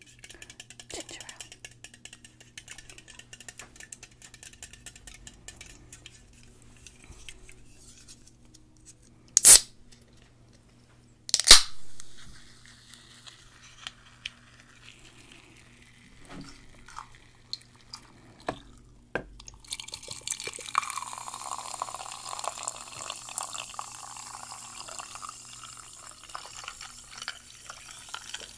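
Can of ginger ale being opened: two sharp cracks about two seconds apart, the second trailing into a short hiss of escaping fizz. About twenty seconds in, the carbonated ginger ale is poured from the can into a ceramic mug, splashing and fizzing steadily.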